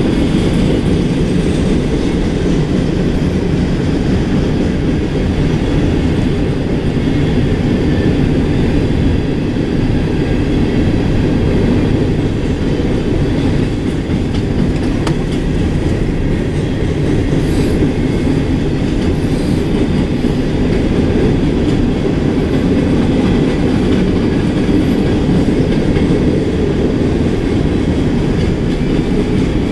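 A freight train of CSX covered hopper cars rolling past close by: a steady, loud low rumble of steel wheels on rail.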